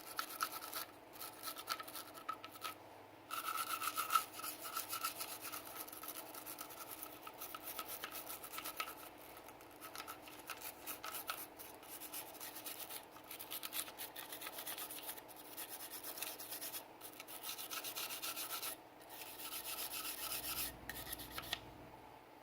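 Rapid rubbing and scrubbing strokes on Sig Sauer P320 pistol parts during cleaning, in runs of a few seconds with short pauses between.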